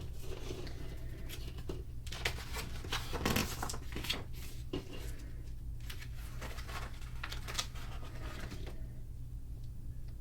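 Pages of a paper rule book being turned and handled: intermittent soft rustles and light taps, over a steady low hum.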